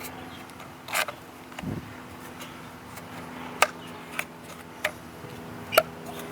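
Scattered sharp clicks and knocks of plastic and rubber parts as a new foot pad is pressed and worked onto a Kreepy Krauly Kruiser pool cleaner, the loudest near the end, over a faint steady hum.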